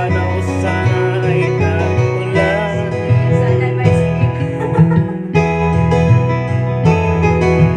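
A man singing a Filipino folk song in Tagalog, with acoustic guitar accompaniment.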